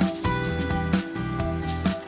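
Background music: held notes over a steady beat, about one beat a second.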